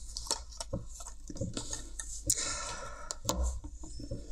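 Plastic hinge and headband of a pair of Bluetooth headphones being handled and turned over, giving scattered light clicks and knocks with a little rubbing, two knocks a little louder past the middle.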